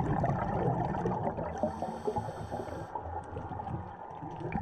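Muffled underwater sound picked up by a diving camera: gurgling, crackling water noise from a scuba diver's exhaled bubbles, with a brief hiss of bubbles about two seconds in.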